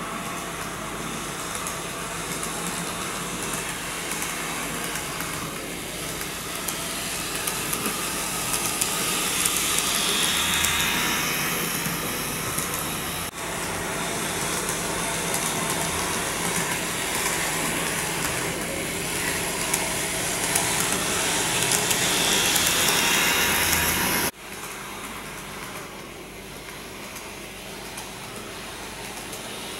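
N-gauge model train, a Railway Collection car powered by a TM-14 motor unit, running on track: a steady motor whine and rolling wheel noise that swells louder twice as the train comes close, with two abrupt drops. The running noise is a bit loud, which the owner puts down to the inexpensive power unit.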